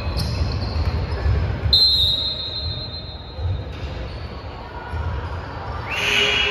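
Basketball bouncing and sneakers thudding on a hardwood gym floor, as dull repeated thuds. About two seconds in comes a high steady whistle blast lasting about a second and a half, the referee stopping play. A brief rising squeak follows near the end.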